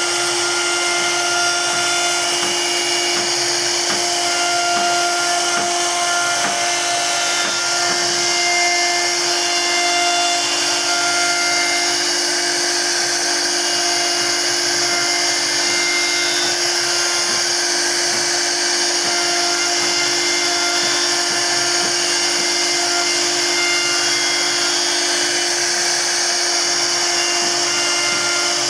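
CNC wood router's HSD spindle running with a steady whine while its bit mills a profile groove along a solid wood panel, over a constant hiss of cutting.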